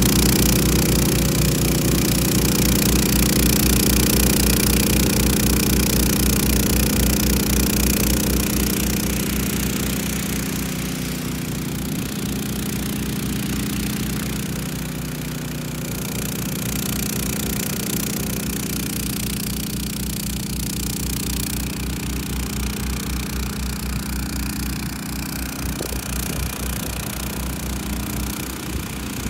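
Engine of a Honda HS1336 hybrid snow blower running steadily under load while its auger chews through deep snow and throws it out the chute. It grows fainter about ten seconds in.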